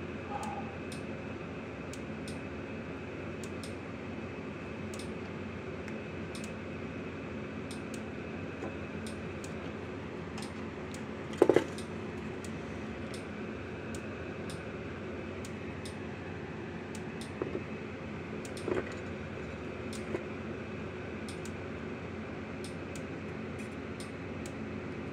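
Hands at work on a circuit board with a soldering iron at a workbench: a steady background hum with a few light clicks of tools and board handling, and one sharp knock about halfway through, the loudest sound.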